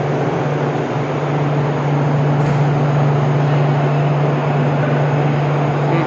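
Steady mechanical drone: a constant low hum over an even rushing noise, like a running machine or ventilation unit.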